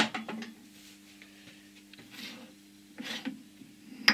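Metal lathe chuck parts knocking and clicking as they are handled on the lathe spindle nose: a cluster of knocks at the start, two softer scrapes in the middle and a sharp click near the end, over a faint steady hum.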